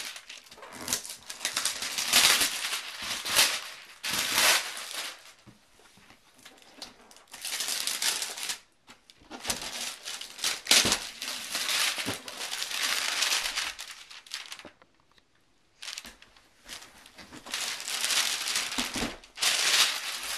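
Large cardboard box being handled and turned over: crinkling, rustling and scraping in irregular bursts, with a pause of about a second near three-quarters through.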